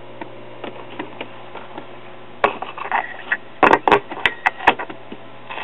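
Talking-book record player's transistor amplifier on, putting out a steady low hum through its speaker, with scattered clicks and a run of sharp clicks and crackles about halfway through.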